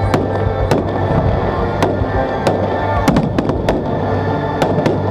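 Fireworks display: aerial shells bursting overhead, with sharp bangs and cracks at irregular intervals, about ten in five seconds, over music playing throughout.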